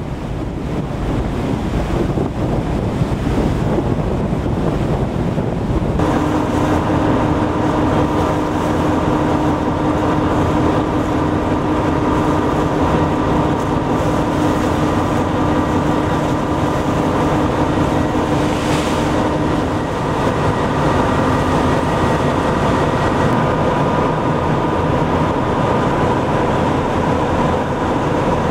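Wind buffeting the microphone over sea noise; from about six seconds in, the steady drone of a tugboat's engines joins it with a constant hum under the wind.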